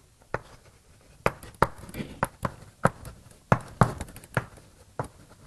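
Chalk tapping and clicking against a blackboard while writing: about a dozen sharp, irregular taps.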